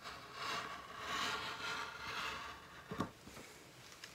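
Rotary cutter rolling through fabric on a cutting mat, a scratchy scraping that lasts about two and a half seconds, then a single sharp tap about three seconds in.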